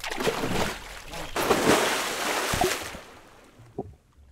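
Pool water splashing and sloshing in two rushing bursts over about three seconds, then dying away.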